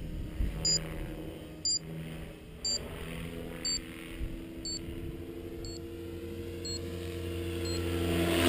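Trex 550e electric RC helicopter's rotor and motor hum, growing louder toward the end as it comes nearer. Over it, short high electronic beeps sound about once a second and fade away.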